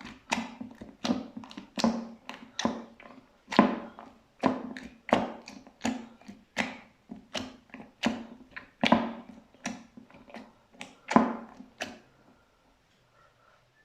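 Slime being pressed and squeezed by hand, making a steady run of sharp clicks and pops about two a second that stops about twelve seconds in.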